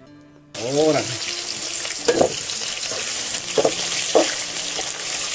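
Sliced onions frying in hot oil in a metal pot, a steady sizzle that starts abruptly about half a second in.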